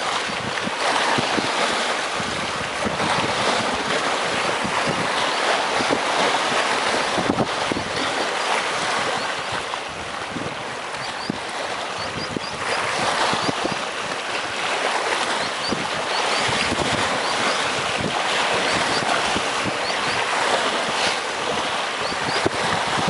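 Sea waves washing and breaking against breakwater rocks: a continuous rushing surge that swells and eases, dipping briefly around ten and sixteen seconds in before building again.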